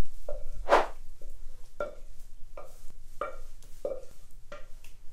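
A wooden spoon scraping and knocking risotto out of a metal pan, in a series of short strokes about one every half to three-quarters of a second, the pan ringing briefly at each one.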